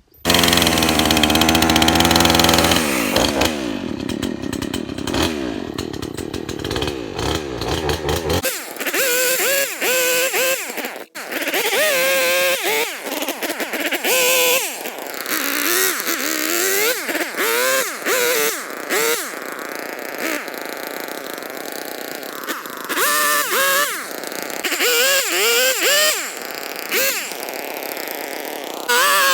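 Two-stroke gas chainsaw running: a steady engine note at first, then revved up and down again and again as it works through cuts.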